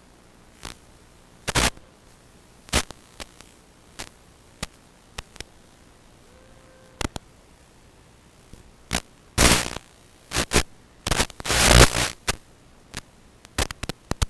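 Irregular crackles and bursts of static on the audio of an analog 5.8 GHz FPV video recording. They are sparse at first, then come thicker and louder from about nine to twelve seconds in.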